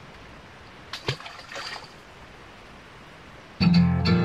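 Water splashing and trickling over a steady background hiss, with a short cluster of splashes about a second in. Near the end, louder guitar music starts abruptly.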